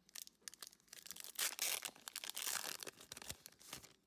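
A Pokémon TCG booster pack's foil wrapper being torn open and crinkled by hand, a dense run of crackling that is loudest in the middle and dies away near the end.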